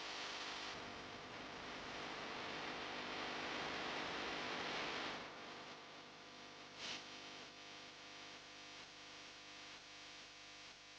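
Electric fan running with a steady rush of air, which drops off sharply about five seconds in; a short louder burst comes near seven seconds.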